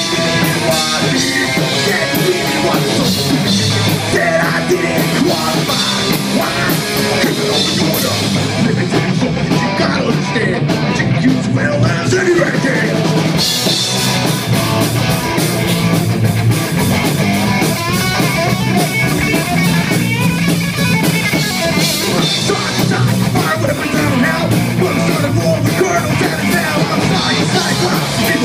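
Punk rock band playing live and loud: electric guitars and a drum kit, with a vocalist on the microphone.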